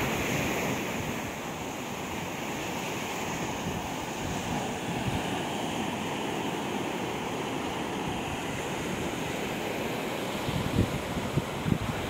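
Rough sea surf: waves breaking and washing up a sandy beach in a steady rush, with wind buffeting the microphone in low gusts near the end.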